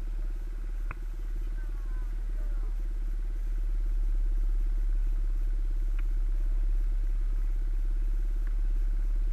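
Motocross bike engines idling steadily with no revving, with a single sharp click about a second in.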